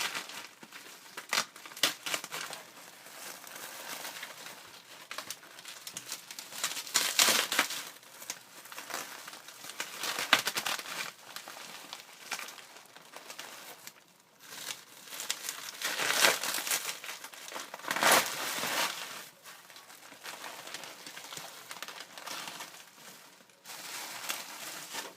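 Bubble wrap and packing material being handled and unwrapped, crinkling and crackling in irregular rustles with several louder bursts.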